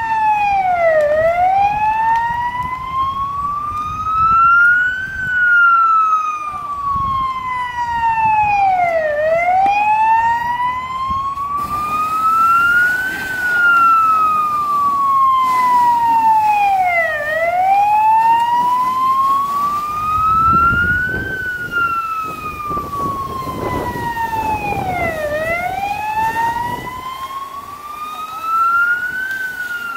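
Fire engine siren sounding a slow wail, rising and falling in pitch about once every eight seconds.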